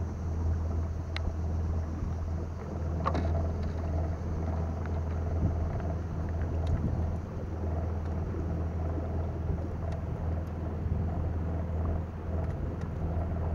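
Electric trolling motor on a canoe running steadily under way, a low even hum, with a few faint sharp ticks about a second, three seconds and seven seconds in.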